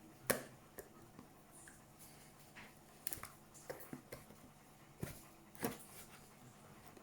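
Scissors cutting into a cardboard box: about six short, sharp snips spread out with pauses between, the strongest about a third of a second in.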